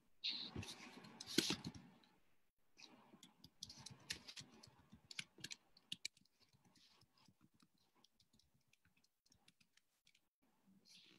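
Faint typing on a computer keyboard: a rustle for the first couple of seconds, then a run of quick key clicks that thins out after about six seconds.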